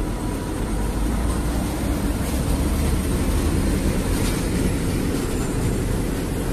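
Container semi-trailer truck driving past: a steady low engine rumble and tyre-on-road noise.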